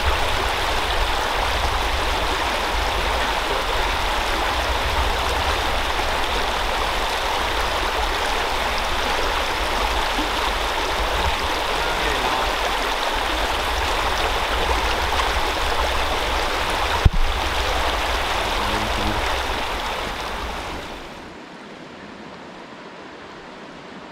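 Small creek running steadily over shallow rocks and riffles, close to the microphone. A single sharp tap comes about three-quarters of the way through, and near the end the water sound drops to a fainter, duller running.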